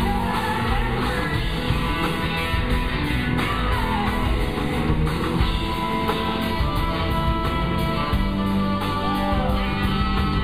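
Live blues-rock band playing, with electric guitars over drums and bass, heard from the audience of a large hall.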